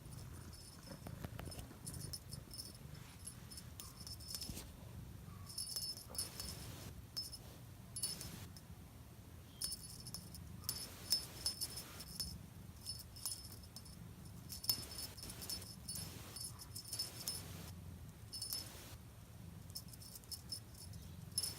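A small bell on a cat toy jingling in short, irregular bursts as a cat bats at and chases the toy, with soft scuffling between jingles.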